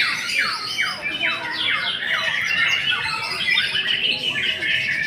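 White-rumped shama (murai batu) singing in a songbird contest: a rapid string of loud downward-sweeping whistled notes, several a second, with other birds' song overlapping and thickening into a dense warble about three seconds in.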